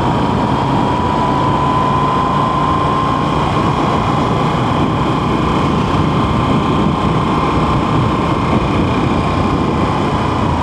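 Motorcycle riding on a road: steady engine and road noise, with a thin high whine that rises a little over the first few seconds and then holds.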